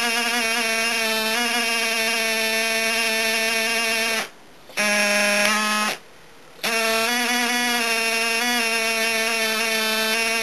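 Small electric air compressor buzzing steadily as it pumps air to drive a model submarine's periscopes up and down. It cuts out twice, for about half a second each time, at about four and about six seconds in, and runs a little lower in pitch between the two stops.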